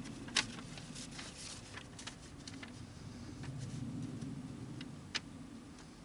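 Light handling noises from a paper instruction sheet: faint rustling with scattered small ticks and a few sharper clicks, one just after the start and another about five seconds in.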